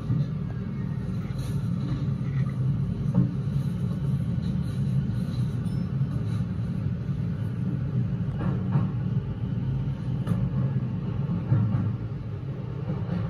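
Keio electric train running through a subway tunnel, heard from inside the front car: a steady low rumble of wheels on rail, with a few faint clicks.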